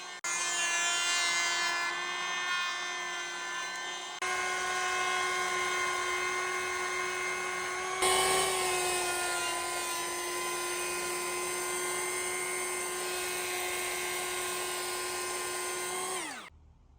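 Makita DKP181 18V brushless cordless planer running at full speed, a steady high whine from its spinning cutter head, with jumps at about 4 and 8 seconds. Near the end it spins down, the whine falling in pitch and fading out.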